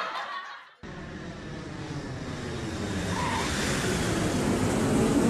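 Airliner engine noise at an airport, a steady rushing sound that cuts in about a second in and grows slowly louder.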